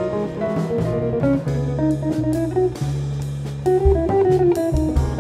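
Jazz quartet playing live: a hollow-body archtop electric guitar picks a running single-note melody over walking double bass notes and drums with cymbal strokes.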